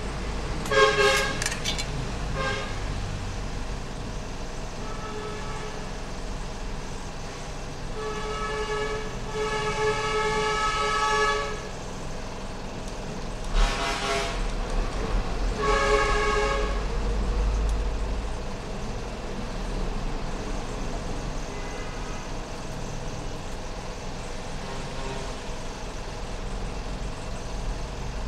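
Vehicle horns tooting several times over a low steady rumble: short toots about a second in, a longer horn blast of a few seconds near the middle, then two more short toots.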